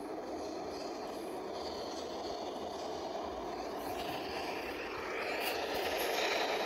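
Broad Street Line subway train approaching through the tunnel: a steady rumble that grows louder from about five seconds in.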